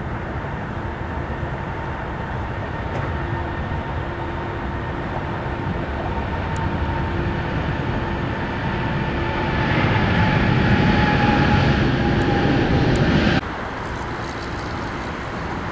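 Boeing 777-200ER jet engines at takeoff power during the takeoff roll: a steady rumble with a held whine, growing louder about ten seconds in, then dropping suddenly to a quieter steady rumble about thirteen seconds in.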